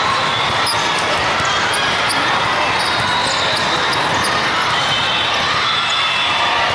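Steady din of a large hall full of volleyball courts: many voices at once, with scattered ball hits and sneaker squeaks.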